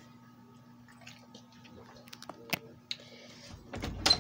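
Faint scattered clicks and taps over a low steady hum, then a short rumbling bump with a sharp click near the end: handling noise from a phone held close against a dog.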